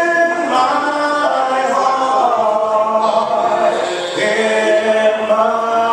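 Church congregation singing a hymn a cappella, many voices together with no instruments, moving through long held notes.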